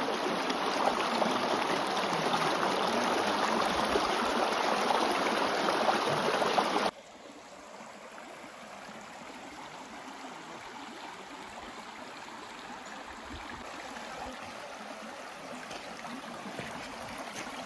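Shallow, rocky hill stream rushing over stones. About seven seconds in, the steady rush drops abruptly to a quieter flow of water over pebbles.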